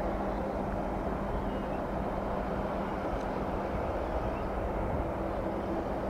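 Boeing 787's Rolls-Royce Trent 1000 turbofans running at low taxi power as the airliner turns on the runway: a steady jet hum with a few low, constant tones.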